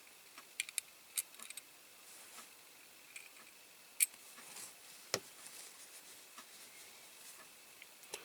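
Faint, scattered light clicks and taps of a small screwdriver and a tiny screw against a diecast metal toy, with two sharper clicks about four and five seconds in.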